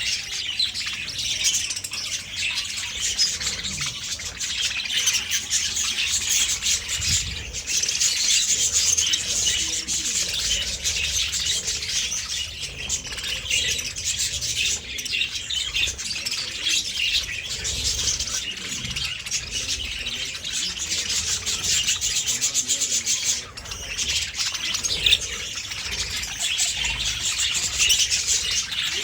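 Budgerigars chattering and chirping nonstop, many calls overlapping into a dense warble.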